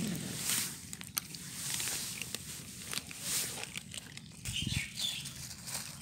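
Several cats eating dry kibble from a bowl: irregular small crunches and clicks of chewing, with soft rustling.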